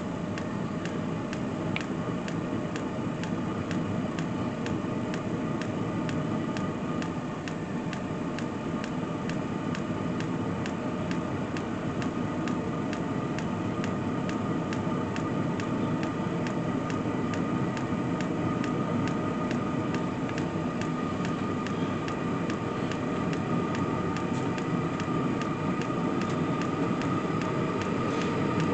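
Diesel air heater running steadily: the blower and combustion fan rushing with a steady whine, the exhaust blowing, and a light regular tick about twice a second.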